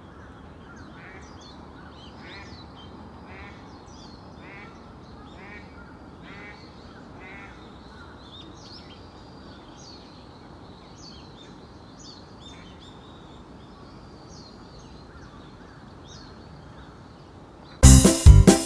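Eastern spot-billed duck quacking in a series of about seven calls, roughly one a second, over the first half, with small birds chirping throughout. Music comes in suddenly near the very end.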